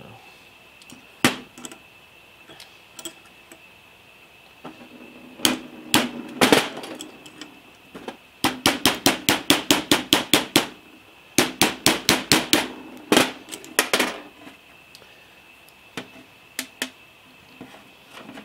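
Small mallet tapping a pin punch to drive a hardened quarter-inch dowel pin out of a collet closer's locking dog; the pin is a worn pivot pin. A few single metallic taps, then two quick runs of light strikes at about six a second, then a few last taps.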